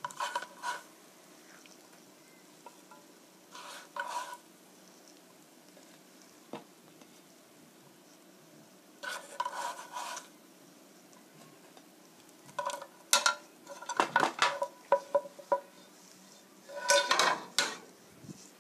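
Metal tongs clinking and scraping against a frying pan and plate in short bunches of sharp, ringing clicks a few seconds apart, busiest near the end, as pan-fried zucchini pancakes are lifted out and set down.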